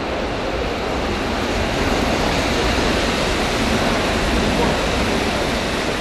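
Steady rushing noise of a velodrome hall that swells for a few seconds in the middle as the bunch of track bikes sweeps past on the wooden boards.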